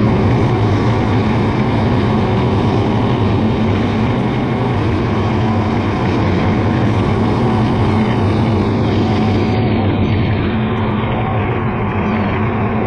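John Deere 7450 self-propelled forage harvester running steadily under load while chopping grass and blowing it out of the spout into a silage trailer: a loud, even drone of engine and cutterhead.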